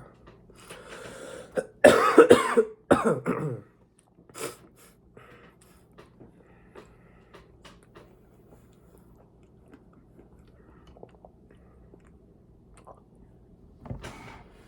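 A person coughing and clearing their throat: a cluster of loud coughs about two seconds in, then only faint small clicks and one short rough sound near the end.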